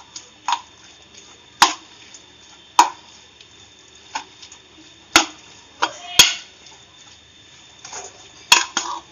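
Metal spoon clinking and knocking against a ceramic bowl while stirring raw meat in a spice marinade: about ten short, sharp clinks at irregular intervals.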